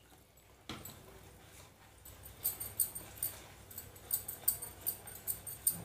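Metal spoon stirring milk into crushed Oreo biscuit batter in a plastic bowl: a soft wet stir at first, then from about two seconds in a steady run of light clicks and scrapes of the spoon against the bowl, about two to three a second.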